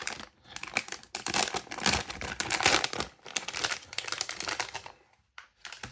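Pop Mart blind-box packaging being opened by hand: a dense run of crinkling and rustling that stops about five seconds in.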